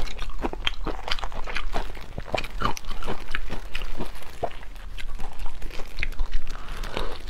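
Large chili-sauce-coated prawns being pulled apart and peeled by plastic-gloved hands: the shells crack and crackle in a quick, irregular run of small snaps.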